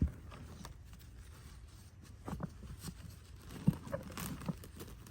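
Hands digging through potting soil and pulling at sweet potato roots: irregular rustling and crumbling of soil with soft knocks, and a sharper thump at the start and again near the middle.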